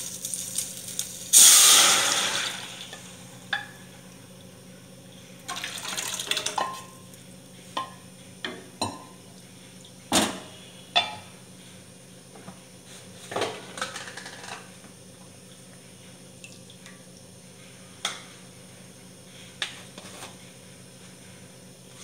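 Boiled masoor dal poured into hot mustard-oil tempering of spices and green chilli in a stainless-steel pan: a loud hiss about a second in that dies away over a second or so, then a second, smaller pour. After it come a series of short clinks of metal utensils on the steel pan.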